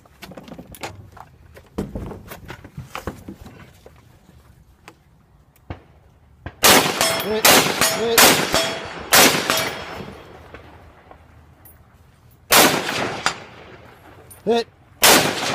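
About six rifle shots, most likely from a .308, fired prone at long-range targets. Several come in quick succession about halfway through, then two more spaced a few seconds apart, each with an echoing tail. Quieter clicks and handling noise come before the first shot.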